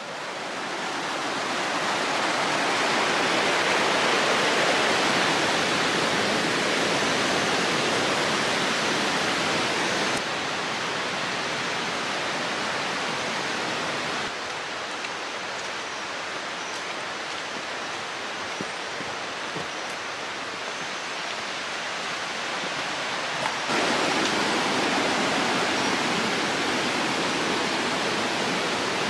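Steady rush of a fast-flowing river running over rocks in rapids. It fades in at the start, drops back for a stretch in the middle and comes up louder again near the end.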